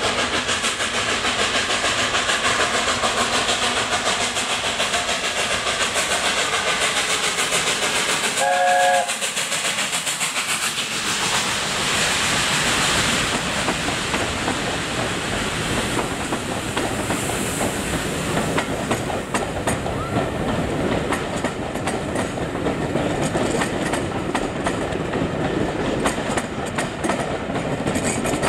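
Steam-hauled train running on the line, its wheels clattering steadily over the rail joints. A short whistle blast sounds about a third of the way in.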